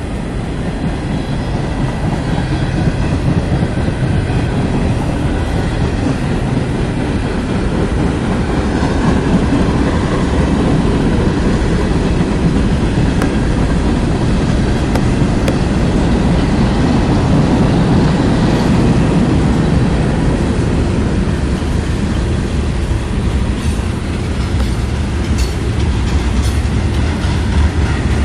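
CSX freight train's auto rack cars rolling past: a steady rumble of steel wheels on the rails, with some clickety-clack.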